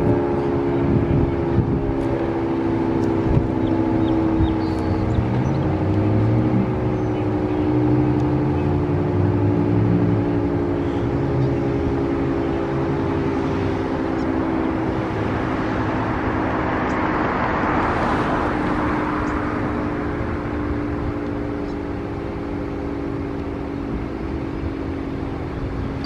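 Federal Signal 3T22 outdoor warning siren sounding its multi-tone chord, the pitch drifting slowly lower and the level easing off. A rush of noise swells and fades about two-thirds of the way through.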